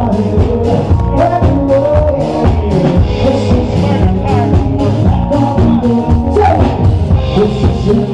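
Loud background music with a steady drum beat and a singing voice.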